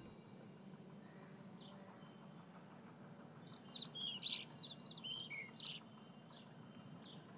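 Birds chirping faintly over a quiet outdoor ambience: a few single chirps, with a quick flurry of short, falling chirps in the middle.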